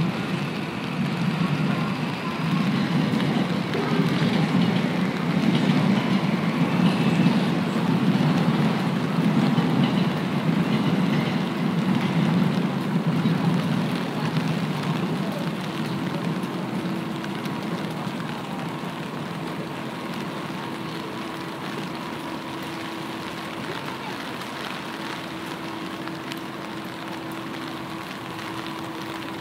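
Steady rain falling on a city street. A low rumble swells and fades over the first half, and a steady hum sets in about halfway through.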